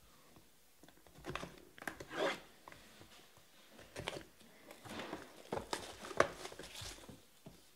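Plastic shrink wrap being picked at and torn off a sealed trading-card box, crinkling and tearing in short irregular bursts.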